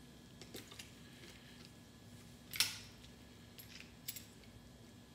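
Small clicks and taps from a trigger-style marinade injector gun being worked into raw chicken, with one sharper click about two and a half seconds in, over a faint steady hum.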